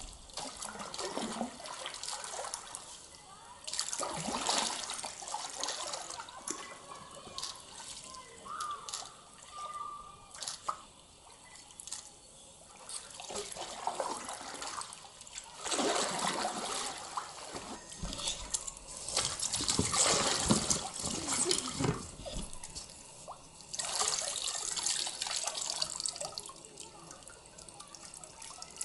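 Water splashing and lapping against a paddle board, coming in irregular louder surges every few seconds.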